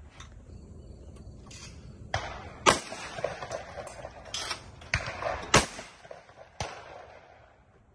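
A shotgun being handled between shots: a run of sharp clicks and knocks, two of them louder than the rest.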